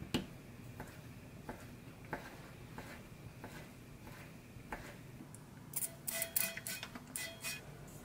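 Kitchen knife cutting sliced ham into strips on a wooden cutting board: a series of short knocks as the blade meets the board, about two-thirds of a second apart. Over the last couple of seconds, a louder run of clattering with a faint metallic ring, as cooked macaroni is tipped from a stainless perforated colander into a dish.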